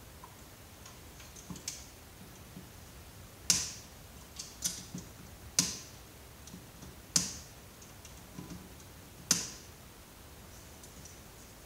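Sharp clicks and knocks of tools and parts being handled while taking apart an old computer monitor: four loud ones a second and a half to two seconds apart, with lighter ticks between them.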